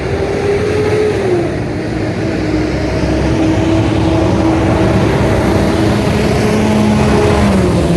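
Steady road-vehicle noise: an even rush with an engine hum whose pitch drops about a second in and again near the end.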